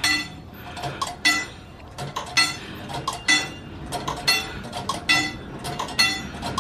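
Railroad wigwag crossing signal in operation: its bell is struck about once a second as the banner swings, each strike ringing briefly, with lighter mechanical clicks in between.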